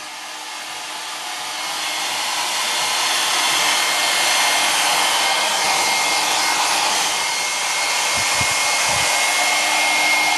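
Handheld hair dryer blowing steadily at close range, with a thin steady whine over the rush of air; it grows louder over the first few seconds, then holds.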